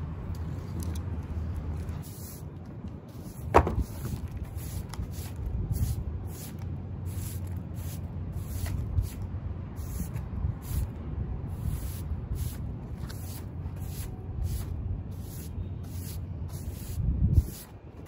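Steady low city rumble, with light rustling and clicking from hands working on flowering plants. A sharper knock comes about three and a half seconds in, and a dull thump near the end.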